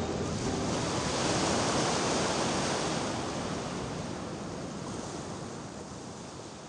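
Ocean surf, a steady wash of breaking waves that slowly fades out over the last few seconds.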